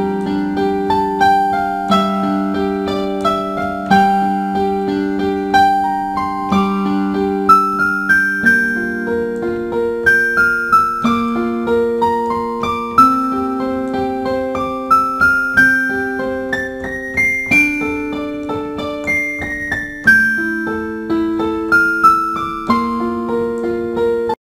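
Slow solo piano music: held low chords under a melody of single notes that step up and down, about one new note a second. It cuts off suddenly at the very end.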